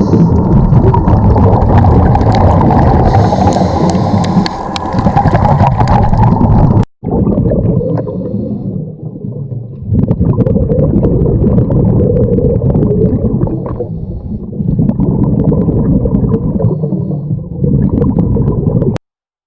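Muffled underwater noise heard through a camera housing: a scuba diver's regulator breathing and the gurgle of exhaust bubbles. The sound cuts out abruptly about seven seconds in, resumes with louder and softer surges, and cuts off again just before the end.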